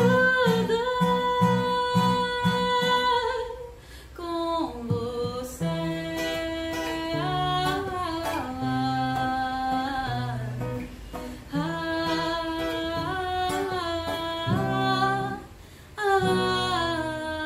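A song: a sung melody of long held notes over a plucked acoustic guitar accompaniment, with short breaks in the singing.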